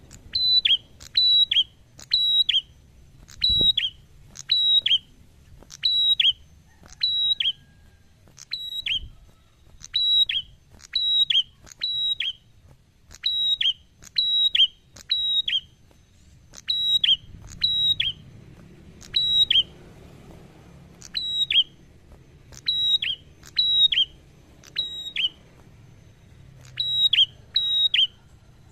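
Caged tailorbird calling loudly over and over: a sharp two-note call, each note a quick downward-slurring whistle, repeated about once a second.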